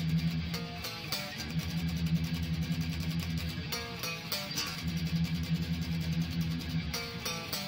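Freedom Custom Guitar Research Stratocaster electric guitar (light ash body, one-piece maple neck) playing through an ADA MP-1 preamp with Zoom G2Nu delay and reverb. It plays a repeating riff: a rapidly picked low note broken about every three seconds by a short run of higher notes.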